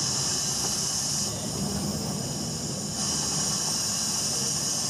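Steady hiss in the cab of GWR steam railmotor No.93, over the low rumble of the carriage running slowly on the rails. The hiss eases about a second in and comes back about three seconds in.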